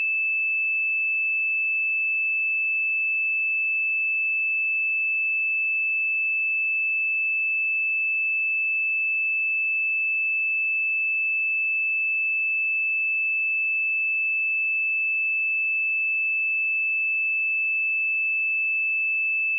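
A pure 2628 Hz sine-wave test tone, held steady at one pitch and level with no other sound.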